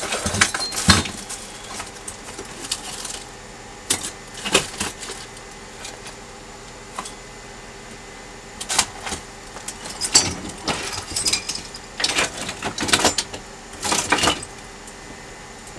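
Clatter of small hard objects being handled and knocked together, in irregular clusters of clicks and knocks, as someone rummages for a small power adapter.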